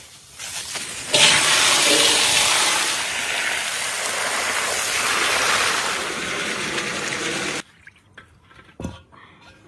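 Water gushing from a hose into a large metal pot of cow's feet, foaming as it fills, as the feet are soaked and rinsed for xash. It builds up about a second in, runs steadily, and cuts off suddenly near the end, leaving faint drips and splashes.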